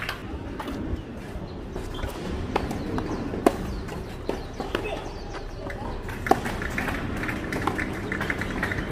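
Tennis ball knocks on a clay court: a few sharp hits, the loudest about three and a half seconds in and again past six seconds, among light footsteps on the clay. Faint voices near the end.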